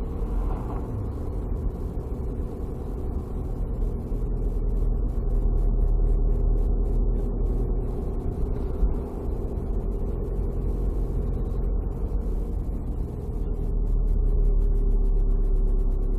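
Car driving: steady engine and road rumble.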